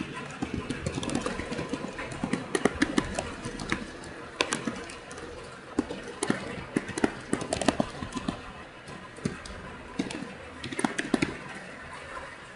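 Computer keyboard typing: irregular runs of sharp keystroke clicks, in clusters with short pauses between, over a steady background hiss.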